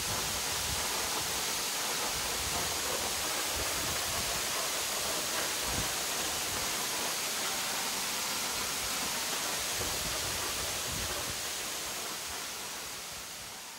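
Duwili Ella waterfall, its water falling as fine spray just past the rock ledge: a steady rushing hiss that fades out near the end.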